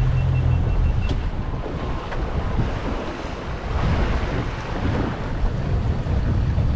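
Wind buffeting the microphone over the rush of a small fishing boat's wake, with the outboard running at trolling speed.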